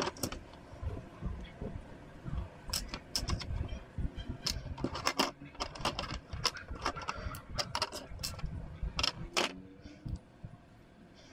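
Grey plastic model-kit sprues and loose parts being handled on a desk: irregular sharp clicks and rattles of hard plastic knocking together, thinning out near the end.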